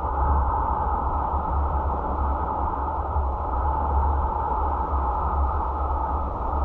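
Steady road and wind noise of a car driving, picked up by a dashcam: a constant low rumble under a rushing hiss.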